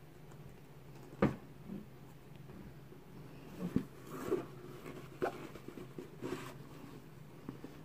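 Hands handling a Louis Vuitton Speedy 25 coated-canvas handbag and reaching inside it: a few scattered soft knocks and clicks with short rustles, over a low steady hum.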